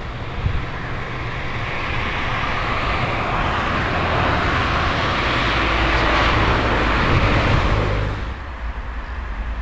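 A vehicle passing close by: a rushing noise with a low rumble that builds to a peak, then falls away sharply about eight seconds in.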